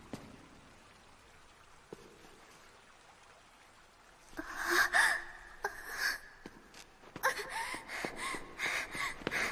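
A girl gasps sharply in fright about four and a half seconds in. From about seven seconds she breathes in quick, hard, voiced breaths, with several footfalls on stone as she runs.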